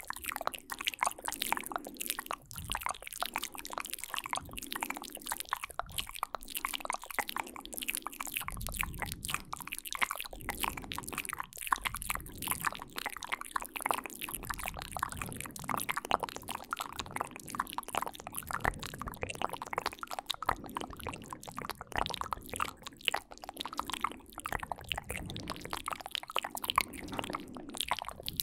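Close-miked wet mouth sounds, layered over one another: a dense, continuous stream of sharp clicks and smacks.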